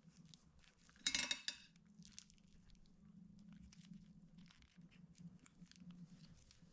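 Hands handling slime-making materials: a short, loud, crinkly rustle about a second in, then scattered faint clicks and taps over a low steady hum.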